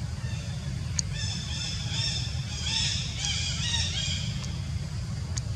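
An animal giving a rapid run of high-pitched, arching calls for about three seconds, starting about a second in, over a steady low rumble.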